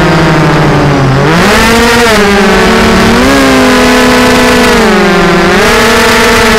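Vortex 250 Pro FPV racing quadcopter's four Lumenier 2206 2350Kv brushless motors and propellers whining, heard from its onboard camera. The pitch sags at first, jumps up about a second in, and then keeps falling and rising with the throttle.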